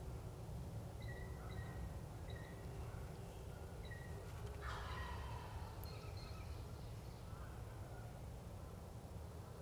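A wild turkey gobbler gobbles once, faintly, about halfway through: a short rattling call that falls in pitch. Earlier there are a few short, high bird chirps, all over a steady low rumble.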